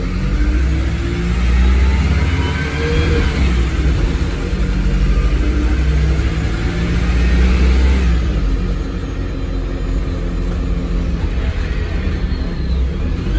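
Inside a 2009 MAN 16.240 city bus with a Voith automatic gearbox: the diesel engine and driveline rumble and whine, rising in pitch for the first few seconds as the bus accelerates, holding steady, then dropping back about eight seconds in.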